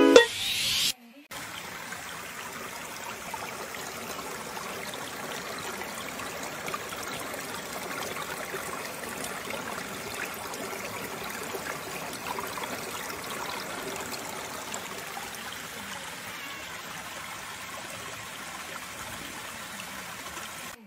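Small stream running over rocks: a steady trickle of flowing water, after a short louder sound in the first second.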